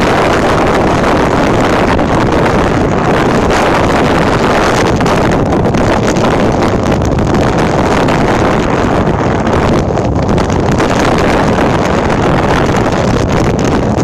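Loud, steady wind buffeting on the microphone of a small fishing boat running at speed across the water.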